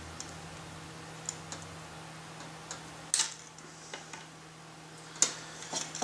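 Small clicks and snips of pliers or wire cutters working insulated hookup wire, with two sharper snaps about three and five seconds in, over a faint steady low hum.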